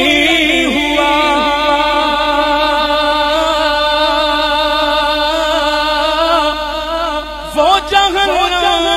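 A man's voice singing a naat, holding one long steady note for about six seconds, then breaking into quick turns of pitch near the end.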